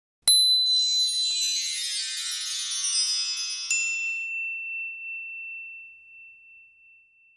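Sound-effect chimes for an animated logo: a bright ding, then a cascade of high, shimmering chime tones, a second sparkling ding about three and a half seconds in, and one high tone ringing on and slowly fading away.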